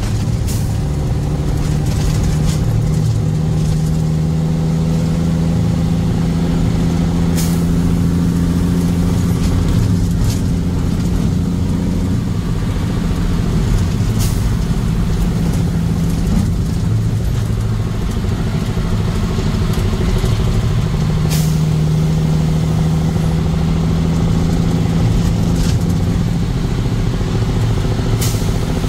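Car engine and road noise while driving, a steady low rumble with an engine hum that shifts slightly in pitch, and a few short knocks here and there.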